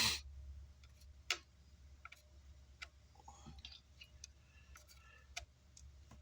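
Scattered small clicks and taps of tools on an amplifier circuit board, the sharpest right at the start and about a second in, over a faint steady low hum.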